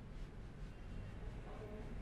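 Faint rubbing of hands working over hair and scalp during a head massage, with a few soft strokes, over a low steady rumble.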